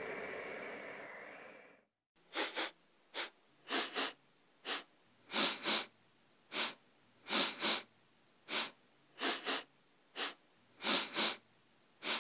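The tail of a whoosh fades out over the first two seconds. After a short silence, a person sniffs repeatedly through the nose, in single and double sniffs about once a second, like someone with a runny nose from a cold.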